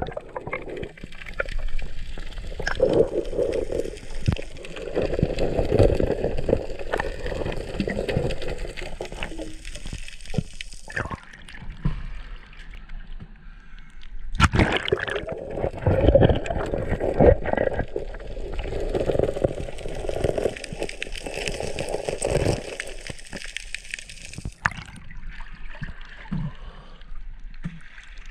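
Water gurgling and sloshing around a camera that dips in and out of the water as a snorkeler dives at pilings for sea urchins: two long stretches of gurgling, each about ten seconds, with a short break between them, then quieter water near the end.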